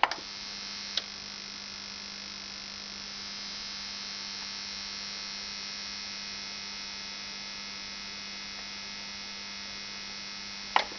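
Onkyo TX-NR709 AV receiver giving off a steady electrical buzz that sounds like an electric shaver, which the owner takes for power-supply hum (Netzteilbrummen). It starts with a click, with another click about a second in and a couple more near the end.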